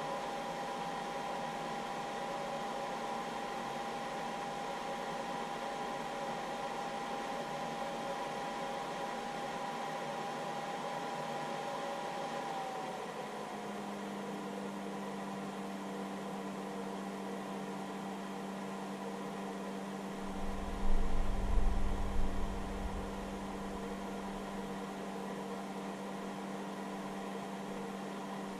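Cooling fan of a hobby battery charger running steadily with a faint whine, while the charger discharges a battery under load. About halfway through, the whine drops slightly in pitch and a low hum joins it. About two-thirds of the way in comes a low rumbling bump lasting a couple of seconds.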